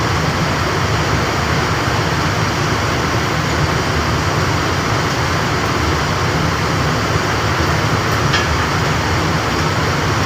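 Air-conditioning refrigeration machinery running steadily: a loud, even hum under a dense hiss that does not change.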